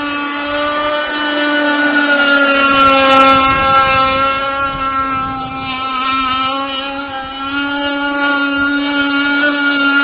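29.5cc Zenoah two-stroke gas engine of a 51-inch RC racing boat running at speed on the water: a steady, high-pitched buzz. Its pitch dips slightly around the middle and comes back up, and it is loudest about three seconds in.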